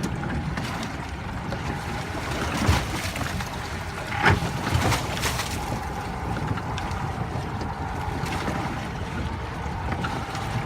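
Fishing boat on the water: a steady low rumble with a faint steady hum, wind on the microphone, and a few short knocks, the loudest about four seconds in.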